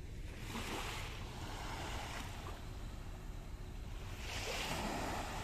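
Small waves washing gently onto a sandy beach, swelling twice and easing off between. A steady low rumble of wind buffets the microphone underneath.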